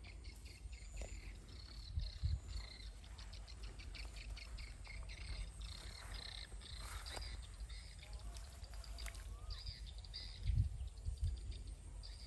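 Outdoor wildlife chorus of rapid, evenly repeated high chirps, with a few low thumps about two seconds in and again near the end.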